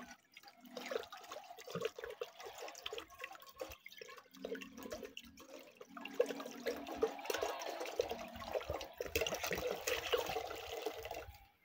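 Water pouring from an upturned glass bottle into water already in a metal cooking pot, splashing and gurgling unevenly as the bottle empties. It stops at the very end.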